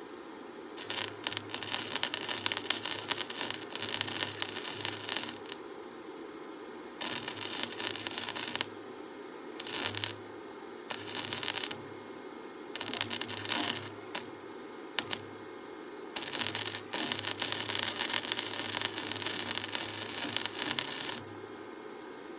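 Electric arc welding in about seven short runs, the arc crackling and sizzling for one to five seconds at a time with a low hum from the welder under each run. The longest run comes near the end.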